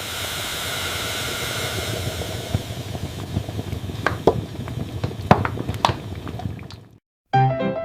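Food sizzling on a grill: a steady hiss with scattered sharp crackles and pops, cut off suddenly near the end. Piano music starts just after.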